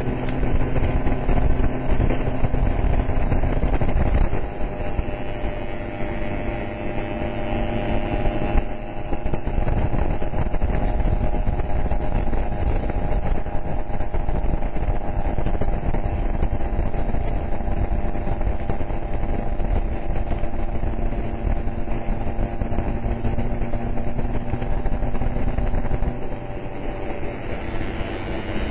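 Motor scooter engine running at road speed, heard from on the scooter, with wind and road noise. Its pitch steps to a new steady note a few times, about four seconds in, again near nine seconds, and near the end.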